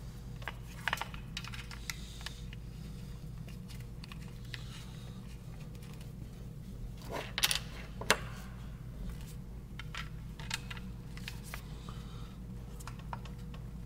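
Small screws being refitted into a hitch lock's switch cover with a hand tool: scattered light clicks and taps of tool and screws on the cover, with two sharper clicks about seven and a half and eight seconds in, over a steady low hum.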